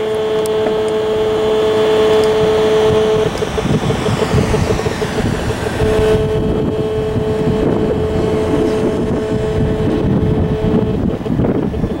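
Audio from the speaker of an EMFields Acoustimeter RF meter, rendering the radio-frequency signals it picks up, here attributed to a nearby cell phone tower. It gives a steady, dense buzz with a held two-note hum that drops out about three seconds in, returns near six seconds, and stops shortly before the end.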